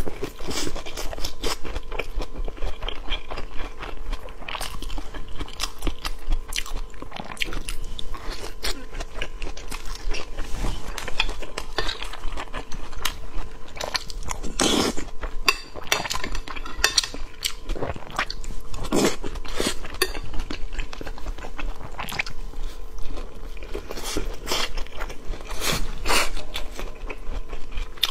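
A person eating close to a lapel microphone: biting into rolled guozi bing flatbreads filled with shredded vegetables, then chewing, with many small crunches and wet mouth clicks.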